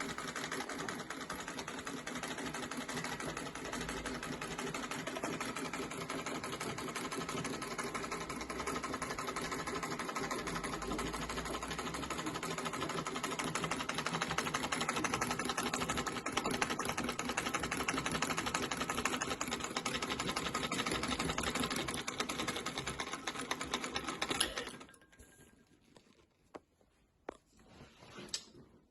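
1924 Singer treadle sewing machine running steadily with a fast, even clatter, freshly cleaned and oiled. It stops suddenly near the end, leaving a few faint clicks.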